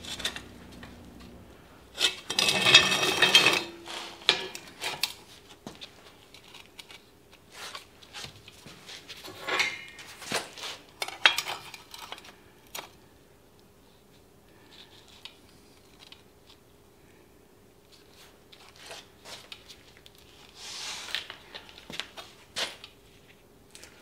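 Steel parts clattering and scraping on a steel welding table as they are handled and set in place, the loudest a rough clatter about two seconds in that leaves a brief metallic ring. After it come scattered light taps and scrapes over a faint steady hum.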